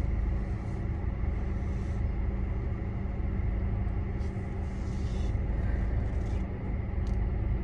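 Steady low rumble and hum of a car with its engine running, heard inside the cabin, with a few faint rustles now and then.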